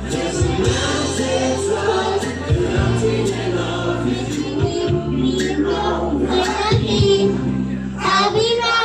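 Music with a group of voices singing together over sustained bass notes, choir-like in sound. Near the end, higher voices slide up in pitch.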